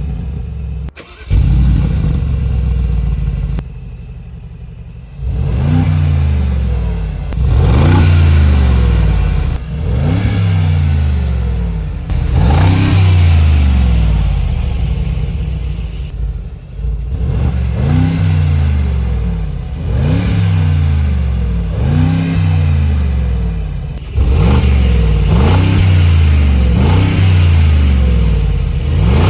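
Mercedes-AMG G63's twin-turbo V8 starting with a loud flare about a second in and settling to idle. It is then revved repeatedly, about a dozen short revs that climb and fall back to idle.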